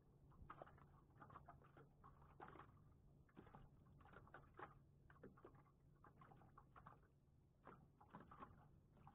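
Near silence: faint, irregular soft clicks over a low steady hum.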